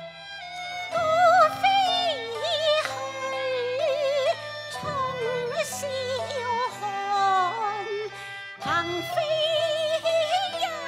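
Cantonese opera song music: a melody with wide vibrato and sliding pitch over sustained accompaniment, dipping briefly about eight seconds in.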